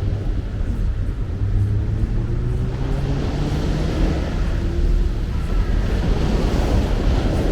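Train running, with a motor whine that rises in pitch about two to four seconds in, over a steady rumble and wind noise.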